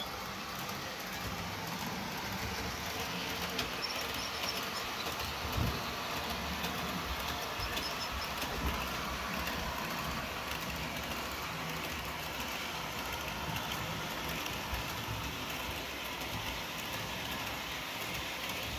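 On30-scale model steam locomotive and coaches running along the layout track: a steady rolling rumble of wheels and motor, with a few brief clicks.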